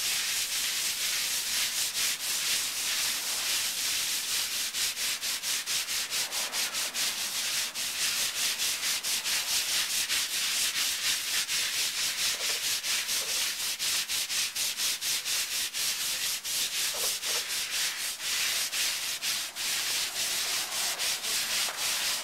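Long-handled stiff scrub brushes scrubbing wet concrete pavers with quick back-and-forth strokes, a steady scratchy rasp, working a sprayed-on effervescent cleaner into the surface.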